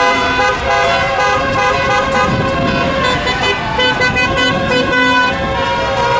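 Many car horns honking at once in a slow victory motorcade, overlapping at different pitches, some short toots and some held.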